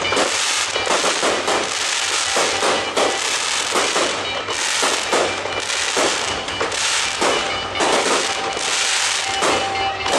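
Aerial fireworks in a dense barrage, many shells bursting in rapid, overlapping bangs, with show music playing underneath.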